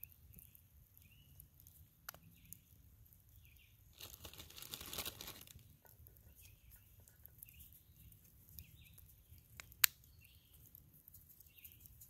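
Faint, short high chirps repeat every second or so. A crinkling rustle rises and fades about four to six seconds in, and a single sharp click near the end is the loudest sound.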